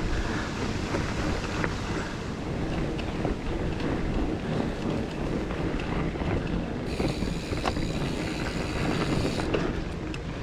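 Giant Fathom mountain bike rolling along a loose dirt trail: steady tyre noise with frequent small rattles and knocks from the bike over the rough ground, and wind buffeting the camera microphone.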